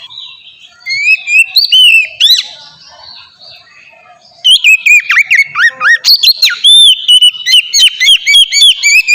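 Oriental magpie-robin singing: a short phrase of whistled notes about a second in, then, after a pause of about two seconds, a long, fast run of varied rising and falling whistles and chirps.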